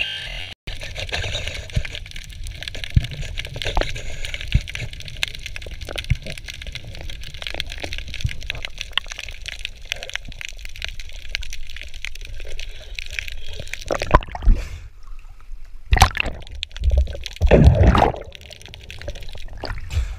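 Underwater ambience: a steady low rumble with many small clicks and crackles. About 14 seconds in comes loud, broken splashing of water as the surface is broken, in several short bursts.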